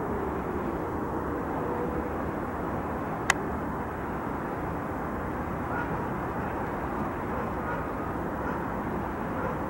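Steady outdoor city background noise with a low rumble, like distant traffic, and one sharp click a little over three seconds in.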